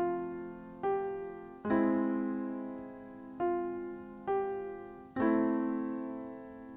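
Slow solo piano music: single notes and chords struck about a second apart, each left to ring and fade.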